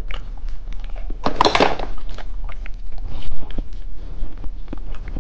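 Close-up handling of small plastic candy toys and packaging: a run of light clicks and taps, with a louder rustle about a second and a half in.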